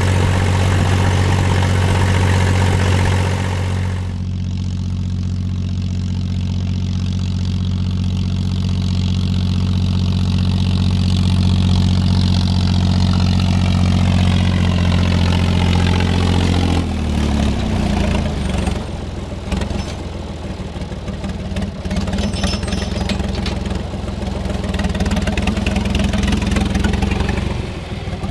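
John Deere 1030 tractor's three-cylinder diesel engine running steadily through a stainless-steel pipe exhaust; a little over halfway through its note drops lower and turns uneven.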